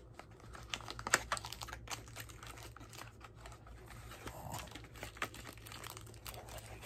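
Cardboard box and its paper packaging being opened and unpacked by hand: faint, scattered clicks, rustling and crinkling.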